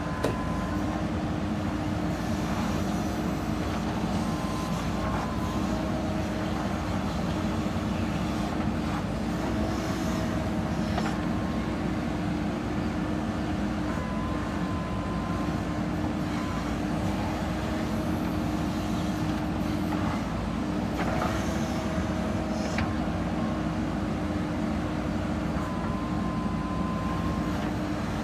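JCB 3DX backhoe loader's diesel engine running steadily as it works, with a fainter whine that steps up and down in pitch and a few clanks about a third of the way in and again past the middle.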